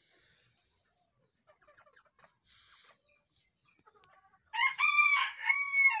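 A rooster crows once, starting about four and a half seconds in: a high-pitched call that opens with a short rise and ends in a long held note. Before it there is only faint scratching.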